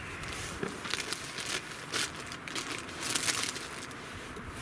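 Irregular rustling and crinkling close to the microphone, with scattered sharp clicks.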